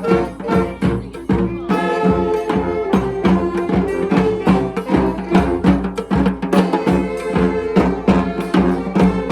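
Street band of horns and drums playing: held horn notes over a busy, steady beat of drums and wood-block-like percussion.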